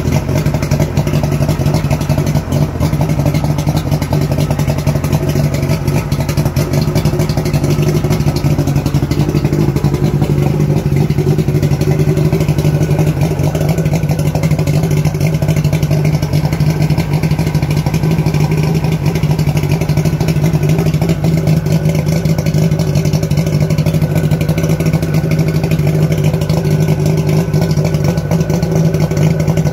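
Mercury 90 outboard motor running steadily with its cowling off, holding an even speed with no revving.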